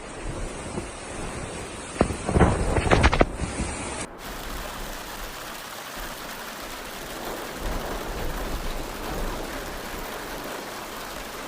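Steady rushing storm noise of wind and rain, broken about two seconds in by a loud crackling crash that lasts about a second. About four seconds in it cuts abruptly to another steady rush of storm noise.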